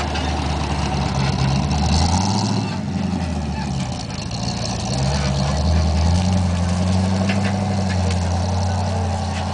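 V8 engine of a lifted off-road jeep running with a low rumble as it drives away over rough ground. The revs rise about a second in, drop back, and climb again about six seconds in.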